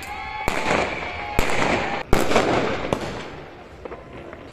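Aerial fireworks bursting: three sharp bangs about a second apart in the first two seconds, each followed by crackling. The last bang is the loudest, and the crackle dies away toward the end.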